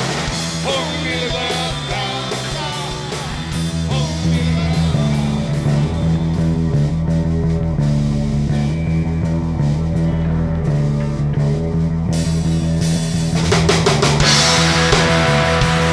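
Rock band playing a song with drums and electric guitars, growing louder near the end.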